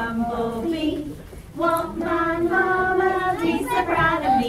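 Young children singing a song together with a woman, in long held notes; the singing breaks off briefly about a second in and then resumes.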